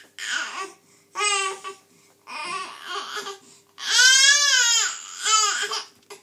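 A baby babbling and fussing in a run of short, high-pitched vocal sounds. The loudest is a longer cry that rises and falls about four seconds in.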